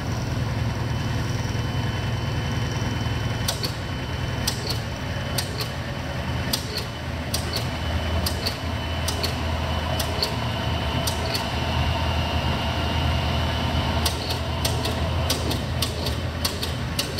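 Hardinge Model HC second-operation lathe running in its middle speed range, its 1-1/2 HP motor and variable-speed pulley drive giving a steady hum that shifts slightly as the speed dial is turned. A thin steady whine comes in a few seconds in, with scattered light clicks throughout.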